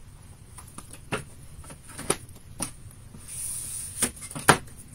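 Paper and chipboard being handled: a few light taps and clicks as glued patterned paper is pressed onto a chipboard panel and set down, with a brief rustle of paper about three seconds in and the sharpest tap near the end.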